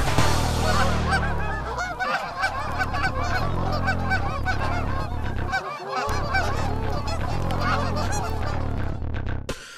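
A flock of Canada geese honking, many calls overlapping, cutting off suddenly just before the end.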